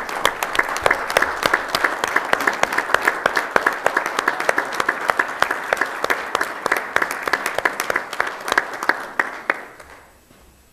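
Audience applauding: a steady round of applause that dies away near the end.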